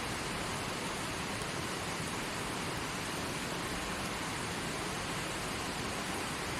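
Mountain river running over rocks: a steady, even rush of water.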